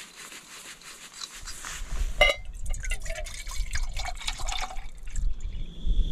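Water pouring from a plastic bottle into a metal cook pot, splashing unevenly, with a sharp metallic clink a little over two seconds in.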